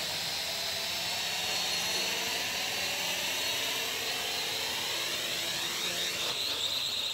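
Small quadcopter drone's motors and propellers whirring steadily as it is flown down by hand to land, the pitch shifting in the last second or two as the throttle changes.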